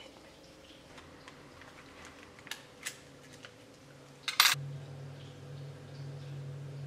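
Handling noise from a jigsaw and its metal blades: a few light clicks, then a sharper clinking clatter about four seconds in. A low steady hum comes in just after the clatter.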